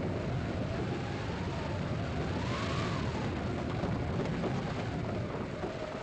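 Galloping hoofbeats made by hand for a radio play by several sound-effects men working hand-held props together: a dense, steady clatter and rumble. A faint tone wavers up and down over it about a second in.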